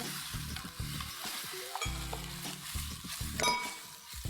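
Tofu and chives sizzling in a hot pan while being stir-fried after the starch slurry goes in to thicken the sauce, with the spatula clinking against the pan now and then.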